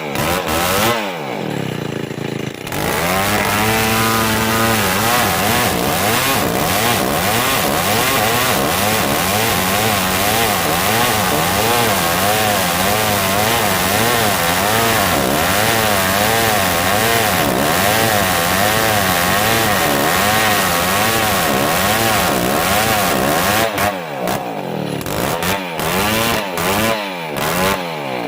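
Old chainsaw cutting dry merbau hardwood: the engine revs up a few seconds in, then runs under load for about twenty seconds, its pitch wavering as the chain bites, before dropping back near the end with short throttle blips.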